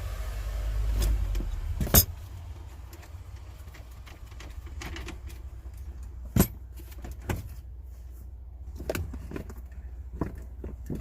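A few sharp knocks and clicks of parts and tools being handled, the loudest about two seconds in and another about six and a half seconds in, over a steady low rumble.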